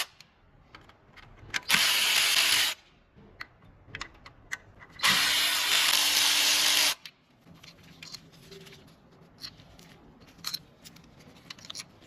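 A power driver with a 10mm socket runs twice, briefly and then for about two seconds, spinning out the ignition coil hold-down bolts on a Hyundai 1.6L petrol engine. After that come small clicks and knocks of the tool and parts being handled.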